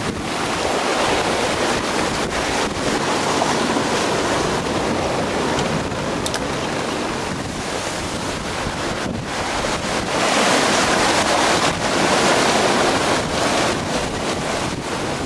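Strong wind buffeting the microphone over the rush of water breaking and streaming along a sailboat's hull as it drives through rough seas. The noise swells louder for a few seconds about ten seconds in.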